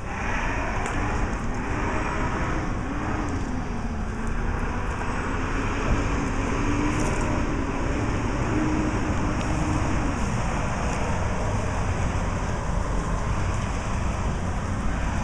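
Steady rumble of road traffic, with an engine drone that wavers up and down in pitch for several seconds before fading.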